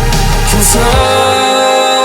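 Background music: a pop song with a steady beat and heavy bass, the drums and bass dropping out about a second in, leaving held notes.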